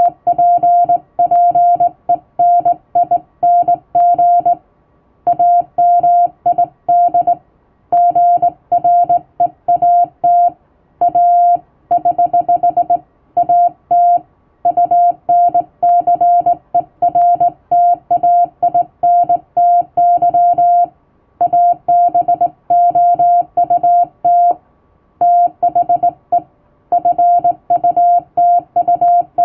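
Morse code sent by hand on a telegraph key, heard as a single steady beep keyed on and off in dots and dashes, with short breaks between words. The text is English plain language.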